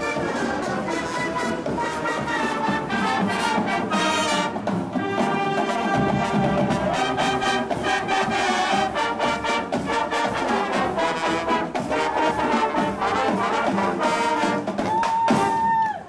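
Marching band playing a tune, led by its brass section with sousaphones, in sustained chords; it ends on a long held note near the end.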